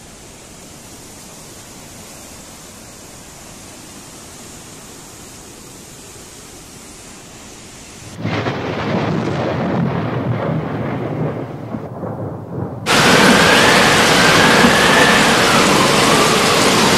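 Muddy floodwater rushing, at first a steady fainter hiss. About eight seconds in it switches abruptly to louder heavy rain and water. About thirteen seconds in it jumps to the loudest part, a torrent of floodwater with a faint wavering whistle above it.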